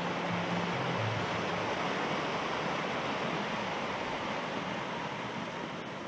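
Steady rain falling, an even hiss of drops on leaves and water.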